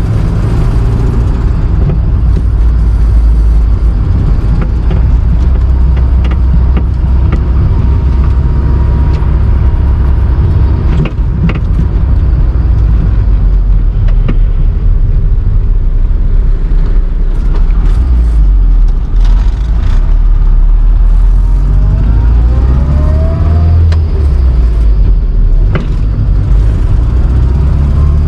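Rover Mini (classic Mini) running, with a loud low engine and road hum and scattered light knocks. The knocking from the left floor is typical of play in the steering rack, which is bolted directly to the body and passes the rattle through the floor panel. The engine note rises briefly about four-fifths of the way through.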